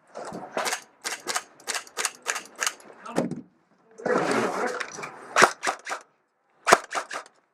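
Airsoft guns firing in short strings of rapid shots, several strings in a few seconds.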